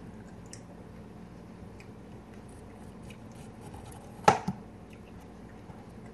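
Chef's knife cutting cucumber on a plastic cutting board: faint scraping and small ticks, with one sharp knock of the blade on the board about four seconds in.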